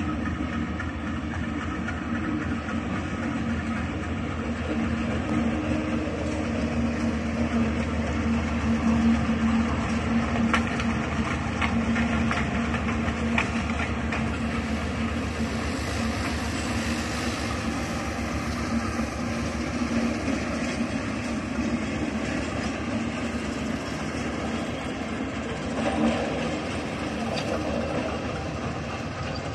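Train running slowly over the track, with a steady low drone and wheels clicking over rail joints, the clicks thickest around the middle.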